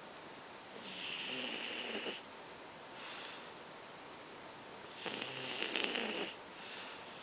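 A sleeping pet snoring in a slow rhythm: two longer, louder snores about four seconds apart, each followed by a softer breath.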